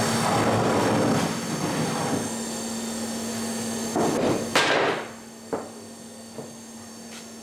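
Steady rushing of the forge's air blast, dying away about five seconds in. A cluster of metal knocks and clanks comes near the middle, and a few lighter single knocks follow.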